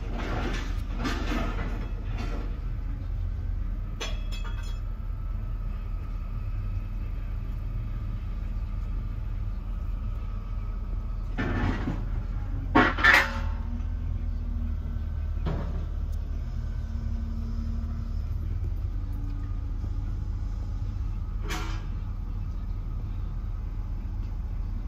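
Steady low engine rumble from heavy machinery, with scattered knocks and clanks of steel. The loudest are two sharp clanks close together about 13 seconds in.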